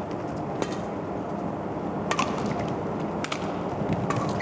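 Badminton rally: rackets striking the shuttlecock, four or five sharp hits about a second apart, over the steady noise of the arena crowd.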